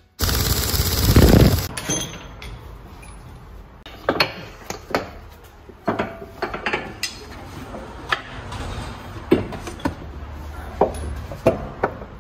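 A brief loud burst from a pneumatic impact wrench near the start, followed by scattered sharp metallic clinks and knocks of tools and parts being handled.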